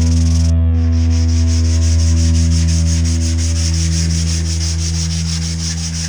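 80-grit sandpaper rubbed over hardened body filler on a steel fender in quick, even back-and-forth strokes, about seven a second, with a short break about half a second in.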